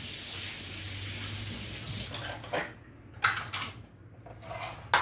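Kitchen tap running for about two seconds, then it shuts off and dishes and utensils clink and clatter several times.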